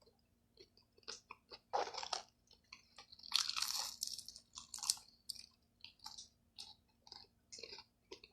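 Close-up chewing and biting on a mouthful of chicken, in irregular crunches with short quiet gaps between them.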